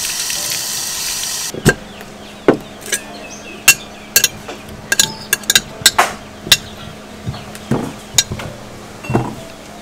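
Water from a tap pouring for about a second and a half, then a metal spoon clinking against a glass jar as fruit is scooped out, with many sharp, irregular clinks.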